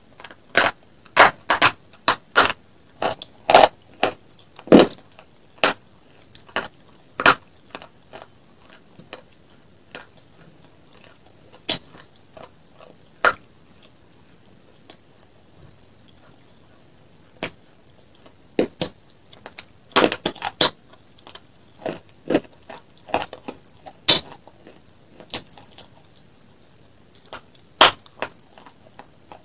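Close-miked crunching and chewing of crisp food: irregular clusters of sharp cracks from bites and chews, with quieter gaps between them.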